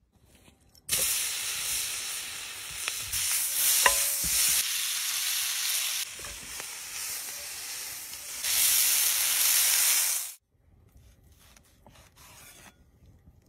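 Food sizzling in hot oil in a cast-iron skillet. The sizzle starts about a second in, shifts in loudness a few times and cuts off suddenly about ten seconds in.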